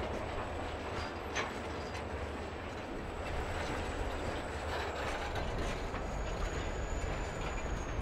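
Freight cars (covered hoppers, then tall open-top cars) rolling slowly past, a steady rumble of wheels on rail with occasional clicks over the joints. A thin high whine runs throughout and dips slightly in pitch near the end.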